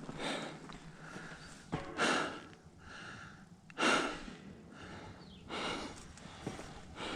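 A man breathing hard while climbing stairs: four heavy breaths about two seconds apart, with a few light footfalls on the steps between them. He is out of breath from the climb.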